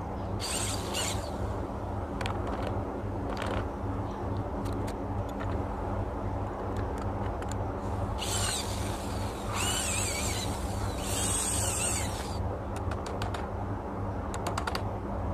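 Corded electric drill boring holes through a wooden board for pegs, in three short runs of high whine past the middle, over a steady low machine hum. A series of light sharp knocks follows near the end.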